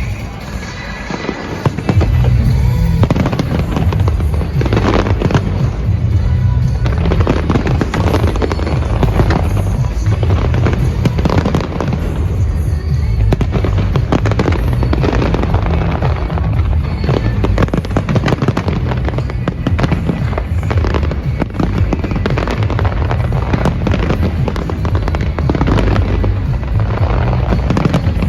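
Big fireworks display: a continuous run of bangs and crackling bursts, with music playing along. It is a little quieter for the first two seconds, then dense and loud throughout.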